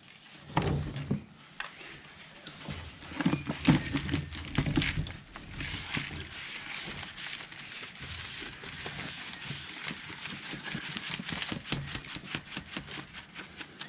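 Damp potting mix and sand being worked by hand in a plastic bucket, then poured from one plastic bucket into another: a rustling, crackling stream of soil with many small clicks. A few louder low thumps come in the first five seconds.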